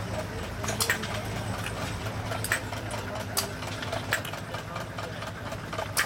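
A small hit-and-miss gas engine firing in sharp, irregularly spaced pops about once a second, over a steady low engine hum.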